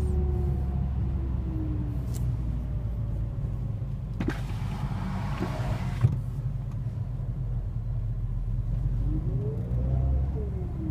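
Mercedes-AMG CLA45's turbocharged four-cylinder engine and road rumble heard while driving, on a car whose turbocharger is failing. A faint whine falls in pitch over the first couple of seconds, a hissing rush comes about four seconds in and lasts about two seconds, ending with a sharp click, and near the end a whine rises and then falls.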